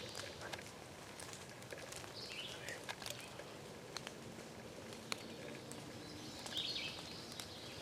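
Quiet rural morning ambience with a small bird singing two short high phrases, about two and a half and six and a half seconds in, and scattered light clicks.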